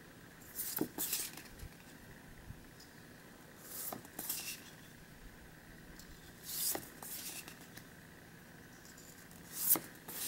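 Stiff glossy card stock of replica lobby cards being shuffled by hand: four short swishes of card sliding over card, about every three seconds, with light taps, the last the loudest.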